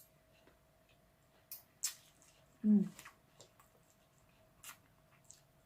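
Someone eating sinigang broth: a few short, sharp slurping and mouth sounds, with a brief hummed "mm" about two and a half seconds in.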